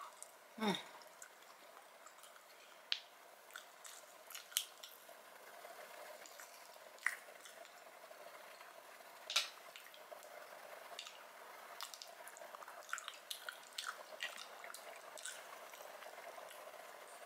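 Quiet wet eating sounds: scattered sharp clicks and smacks from chewing seafood and from fingers picking meat out of mussel shells.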